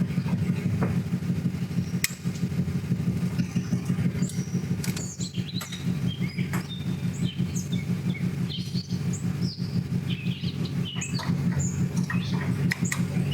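A steady low motor hum, with small birds chirping repeatedly over it from about four seconds in.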